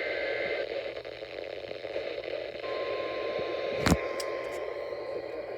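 Radio receiver hiss and static between alert broadcasts, with a faint steady tone from about the middle to near the end and one sharp click a little before four seconds in.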